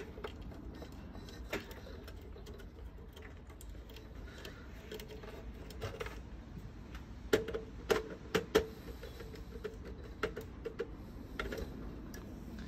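Light handling noises and irregular small clicks as electrical wires are worked into a defrost timer's terminal block by hand, with a cluster of sharper clicks about seven to nine seconds in.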